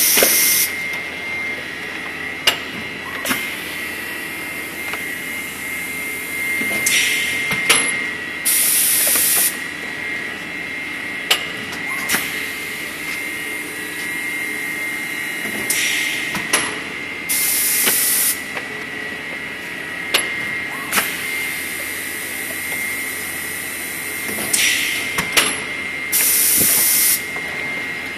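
Plastic thermoforming machine running through its forming cycle: a steady mechanical hum with a thin high whine. About every nine seconds it is broken by a short hiss and then a louder blast of air lasting about a second, with sharp clicks and knocks in between.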